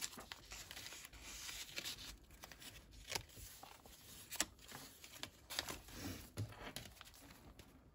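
Paper and cardstock pages of a handmade junk journal being turned and handled: faint rustling with scattered small taps and flaps.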